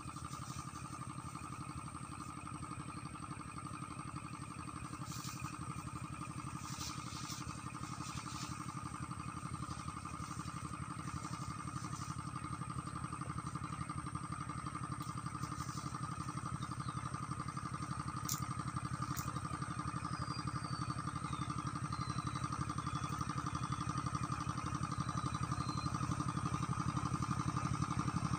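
An engine running steadily with a fast, even pulse, slowly growing louder over the whole stretch, as if drawing nearer.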